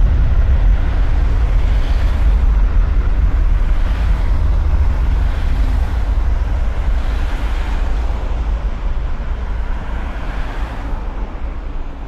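Cars passing on a multi-lane road, their tyre and engine noise swelling and fading as each one goes by, over a deep rumble that slowly fades toward the end.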